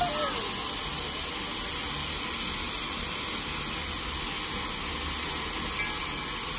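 Steady hiss of steam blowing out of the open cylinder cocks of a D&RGW C-19 narrow-gauge 2-8-0 steam locomotive.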